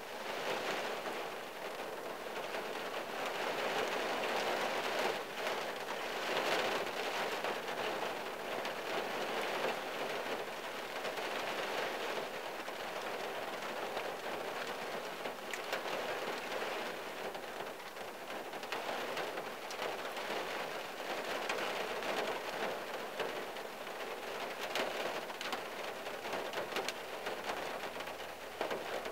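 Steady rain falling on the roof and windshield of a 1974 Plymouth Valiant, heard from inside the cabin: a dense patter of drops that gently swells and eases.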